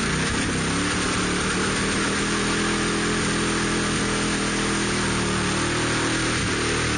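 Engine of a modified off-road 4x4 running at high revs under load in deep mud, held fairly steady, then dropping about six seconds in.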